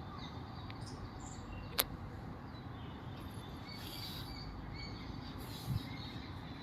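Faint, scattered chirps of small birds over a steady low outdoor background rumble, with one sharp click a little under two seconds in and a dull thump near the end.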